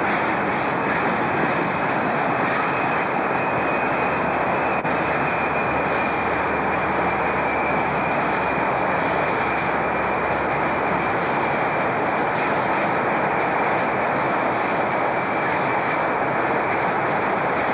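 Freight train of covered hopper wagons rolling past, a steady rumble with a faint, steady high whine over it.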